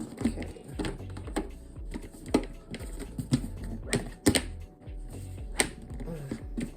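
Irregular clicks and knocks of plastic parts being handled on a portable washing machine.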